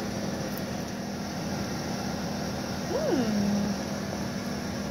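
A woman's appreciative "mmm" while tasting food, about three seconds in, its pitch rising briefly and then sliding down, over a steady low hum.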